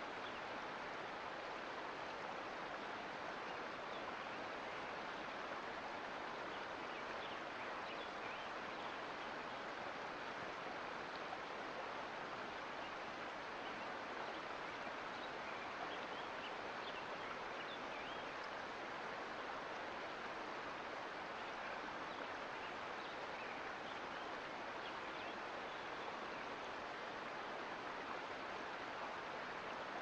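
Mountain creek flowing: a steady, even rush of water, flecked with small splashes.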